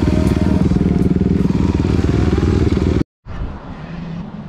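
Dirt bike engine running hard at close range while riding a motocross track, a dense pulsing engine sound. It cuts off abruptly about three seconds in, leaving a much quieter background with a faint, steady engine drone.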